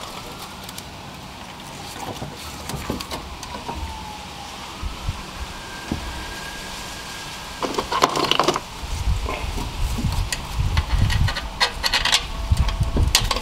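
A replacement alternator being handled and worked into its mount in the engine bay, with scattered clicks at first. About halfway through comes a busy run of metal knocks, clunks and low thuds as the alternator is shifted against the brackets.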